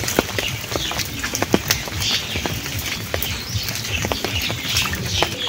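Scattered raindrops and drips falling into puddles on a flooded path, making irregular pattering taps.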